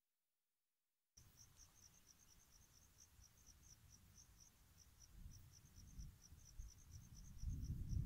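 Crickets chirping steadily, about five short high chirps a second, starting about a second in. Beneath them a low rumble that grows louder near the end.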